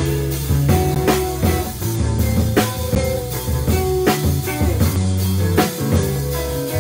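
Live instrumental band of electric guitar, electric bass and drum kit playing together: sustained bass notes and guitar lines over a steady drum beat.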